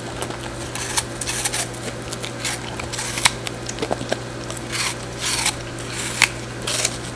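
Corgi biting into and chewing a crisp apple held in a hand: a run of sharp, irregular crunches, over a steady low hum.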